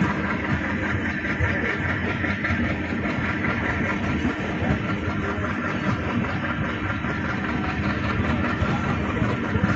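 Steady mechanical noise of an Indian Railways passenger train, a dense even din with a constant hum under it.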